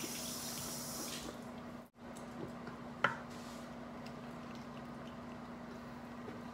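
Quiet room tone with a steady low hum. A high hiss in the first second and a half cuts off abruptly, and after it come faint scattered clicks and one sharp click about three seconds in.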